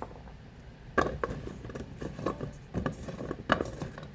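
Carrots being handled on a cutting board: a handful of irregular knocks and clatters, the first about a second in and a few more near the end.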